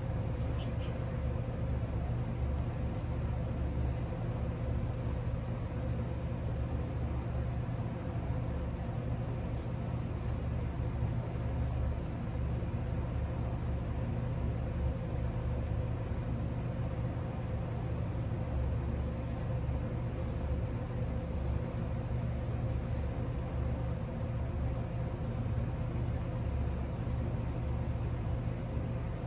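Steady low mechanical hum with a thin constant whine over it, from a machine such as a fan or motor running without change.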